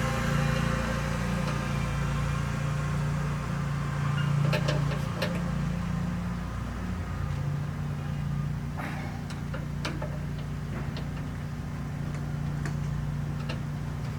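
A steady low mechanical hum, like a fan or motor running, with scattered light clicks and taps from parts being handled and fitted.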